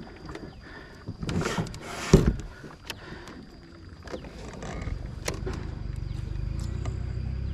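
Kayak on the water: two short splashy strokes, the second the loudest with a thud, then a steady low rumble builds from about halfway through.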